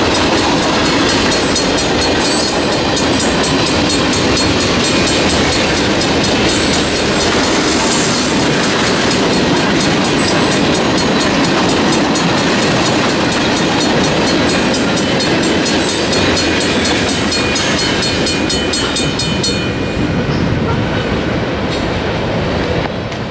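Freight cars rolling past with wheels clacking over the rail joints, while the crossing's Safetran mechanical bell rings steadily. The train noise drops away about 20 seconds in as the last car clears, leaving the bell.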